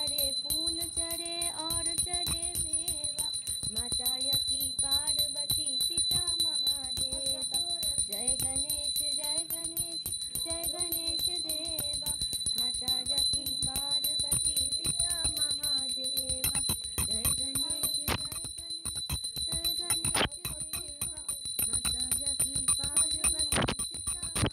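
Devotional aarti music: a melodic song, with a small bell ringing steadily beneath it.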